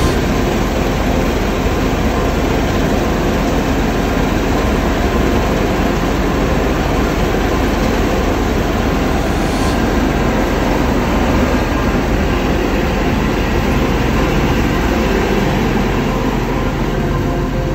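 New Holland combine harvester running steadily: a loud, continuous machine noise with no breaks.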